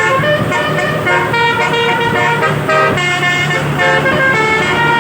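Telolet bus horn, a multi-tone musical air horn, playing a quick melody of short stepped notes over the steady hum of the bus's engine.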